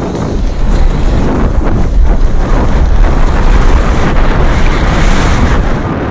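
Loud, steady wind rushing over the microphone of a camera riding on a moving BMX bike.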